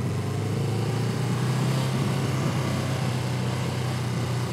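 Motorcycle engine running steadily at low speed, with an even hum.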